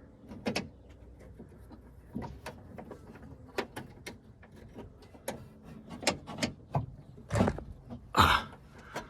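Irregular metal clicks, taps and clunks from parts and tools being worked inside a GMC truck door while fitting the door latch and lock, with a few louder clunks near the end.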